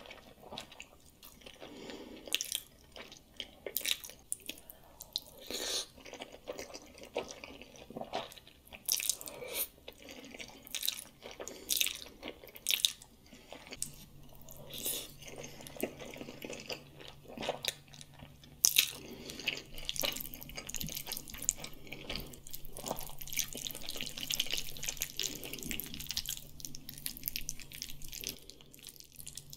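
Close-miked wet eating sounds of spaghetti in tomato sauce: chewing, slurping and lip smacks, with many irregular sharp wet clicks.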